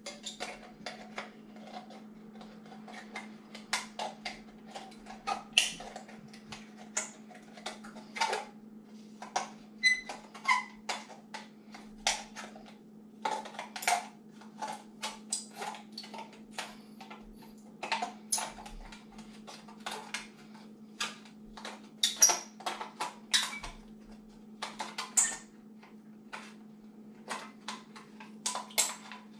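Scissors cutting around a metal can: a long run of short, irregular metallic snips and clicks as the blades work through the thicker can wall. A steady low hum runs underneath.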